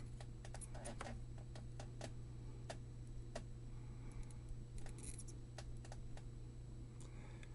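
Faint, irregular light clicks and taps of small hand tools on a circuit board during soldering work, over a steady low hum.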